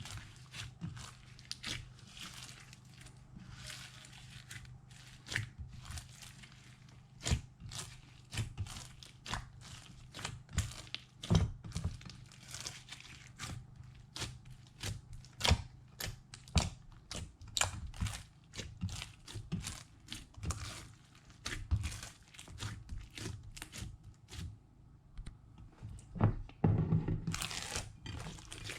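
Slime being mixed, giving irregular sticky pops, clicks and crackles, with a denser run of crackling near the end. A steady low hum runs underneath.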